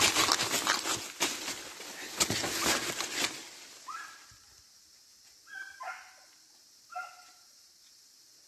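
Dry leaves and brush crunching and rustling underfoot as someone moves quickly through forest undergrowth, with a few sharp crackles. It stops about three seconds in, and about four short barks from hunting dogs follow in the distance.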